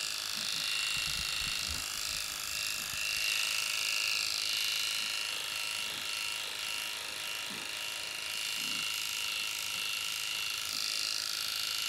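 Electric pet clipper fitted with a 2 mm blade, running steadily with a high whine over a hiss as it shaves through a Persian cat's dense matted fur close to the skin.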